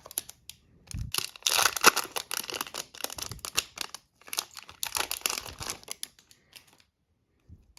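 Hockey card packaging being opened: wrapper crinkling and tearing in two long spells of dense crackling, dying away near the end.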